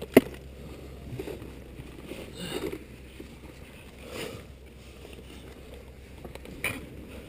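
A climber moving along a snowy rock ledge with an ice axe and rope: a sharp click of gear just after the start, then a few scattered crunches and scrapes of steps and axe placements in snow.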